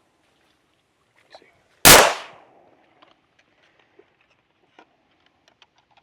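A single gunshot from a semi-automatic pistol about two seconds in, a sharp crack with a short fading echo, followed by faint clicks of handling.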